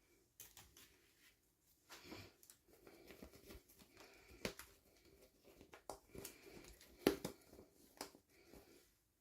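Hands handling small toy packaging: faint rustling of plastic or paper with irregular light clicks and taps. The sharpest tap comes about seven seconds in.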